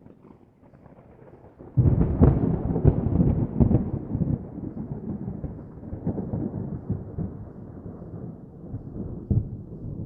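Thunder: a faint low rumble, then a sudden loud crack about two seconds in that turns into a long rolling rumble, slowly fading.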